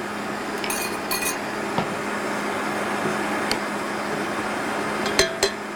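Electric stand mixer running steadily, mixing tart dough, with a few light clinks of a spoon and dishes: a cluster about a second in, one in the middle and a couple near the end.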